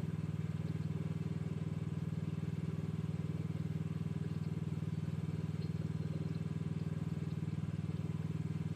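Mini excavator engine running steadily, with a fast, even pulsing.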